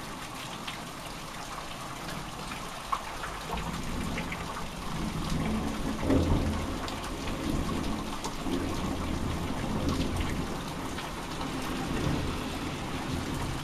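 Thunderstorm: steady rain with scattered drops ticking close by, and a long roll of thunder rumbling low that builds a few seconds in, is loudest about six seconds in, swells again later and fades near the end.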